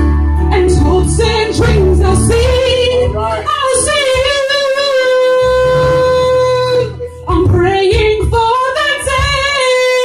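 A woman singing live into a handheld microphone, amplified through a PA. About four seconds in she holds one long, steady note for roughly three seconds, then goes on with the melody.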